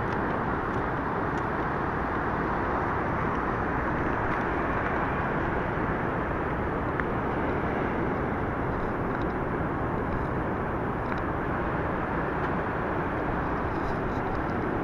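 Steady rush of large ocean waves breaking on the beach, an even roar that holds throughout.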